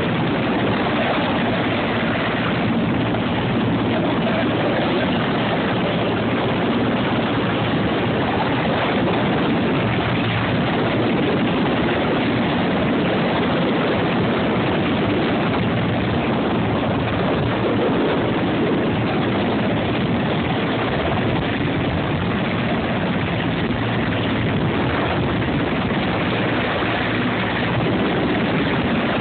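Helicopter running steadily, its engine and rotor making a loud, even noise that doesn't change.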